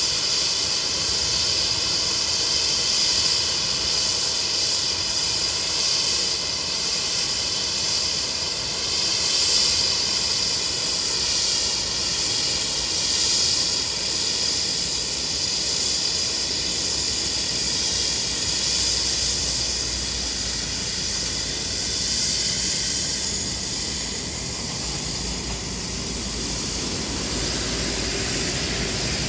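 An Airbus A380's Rolls-Royce Trent 900 turbofans running at taxi power: a steady jet whine of several high tones over a hiss, with a low rumble growing in the second half.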